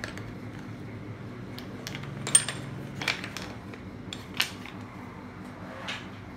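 Small metal hammers clinking against one another as they are handled, about five sharp clinks, the loudest about two and a half seconds in with a brief high ring.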